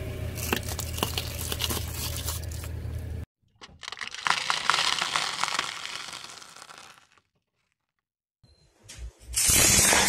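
A car tyre rolling slowly over small objects and crushing them. Plastic cracks and crackles, then foil crinkles as it is flattened, in separate takes that cut off abruptly. After a moment of silence, a loud crunch comes near the end.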